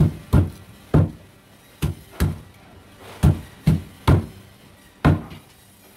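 A heavy knife chopping through a stingray's cartilage into a thick wooden chopping block: nine sharp, deep thuds at uneven intervals, some in quick pairs.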